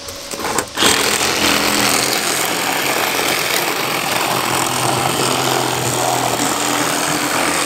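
A power tool starts abruptly about a second in and runs steadily at full power while the car's window is taken out.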